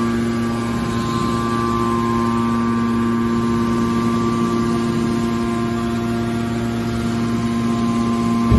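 Hydraulic power unit of a scrap metal baling press running: a steady machine hum made of a few constant tones over a noise floor, with a brief low knock right at the end.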